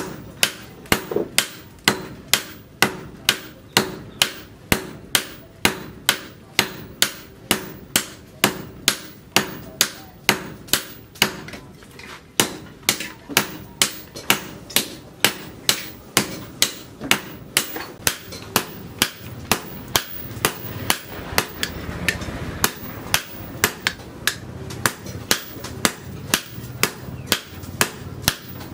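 Sledgehammer and hand hammer striking red-hot leaf-spring steel on a steel post anvil, forging a knife blade. The blows fall in a steady rhythm of about two a second, each with a short metallic ring.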